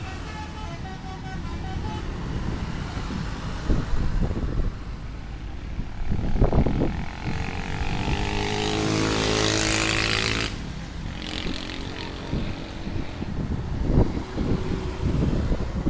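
Mercedes-Benz OH1526 bus engine passing close by. It swells to its loudest around eight to ten seconds in, its note sliding slightly lower, then cuts off suddenly, over steady road noise with a few low thumps. A few faint telolet horn notes trail off at the very start.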